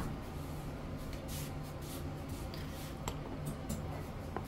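Kitchen cooking noises while a steak is prepared: a few short hisses and light clicks over a steady low hum.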